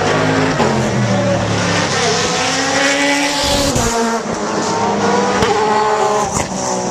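Several race car engines running hard at once, their pitches rising and falling through gear changes as the cars pass.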